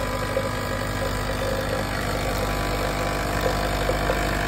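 Nescafé Dolce Gusto capsule coffee machine's pump buzzing steadily as it dispenses coffee into a mug.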